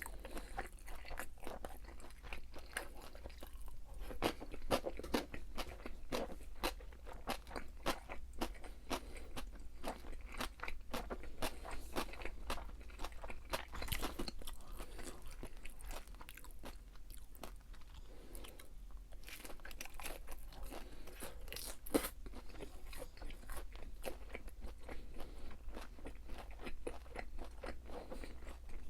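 A person chewing crisp fried food, with many sharp crunches in quick succession and brief lulls between bites.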